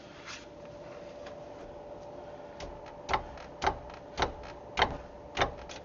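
A run of six sharp metallic clicks, evenly spaced a little over half a second apart, starting about three seconds in, from hand-tool work on a car's front brake caliper and its bolts. A steady hum runs underneath.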